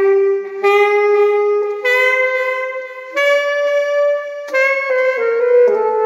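A saxophone playing alone: a slow line of held notes, each about a second long, climbing step by step, then falling in shorter notes near the end.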